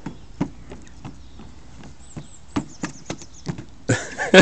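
Footsteps on a trampoline's padded rim: light, irregular taps and thuds as a child walks around it. Faint bird chirps can be heard, and a voice breaks in near the end.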